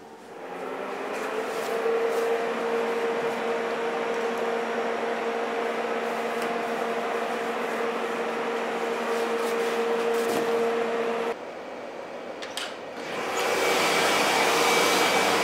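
Cooling fan of a Melles Griot 43 Series ion laser spinning up and running steadily, with a hum that rises slightly in pitch as it comes up to speed, then cuts off abruptly about eleven seconds in. A similar fan noise builds again near the end.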